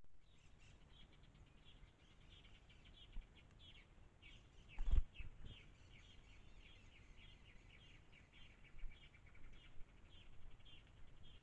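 Pileated finches calling: a steady stream of short, high, downward-sloping chirps, with a single low thump about five seconds in.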